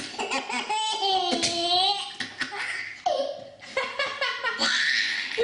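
Baby laughing in bouts of high-pitched squeals and belly laughs, set off by someone sneezing.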